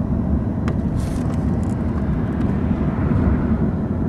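Steady road and engine noise of a car driving, heard from inside the cabin, with a faint click or two about a second in.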